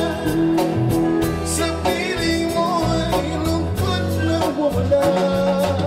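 Live band playing a Manila Sound pop song, with singing over guitar and bass.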